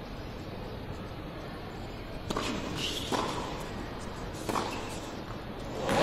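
Tennis ball struck by rackets during a rally, about three sharp hits spaced roughly a second apart, starting a couple of seconds in. Crowd applause breaks out right at the end as the point finishes.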